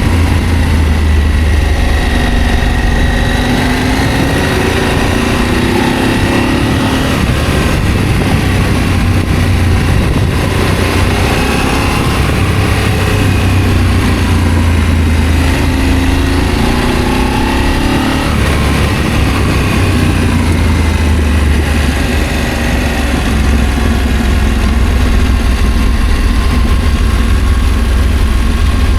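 Adventure motorcycle engine running on the move, its note rising and falling several times as the rider opens and closes the throttle, over a steady rush of noise.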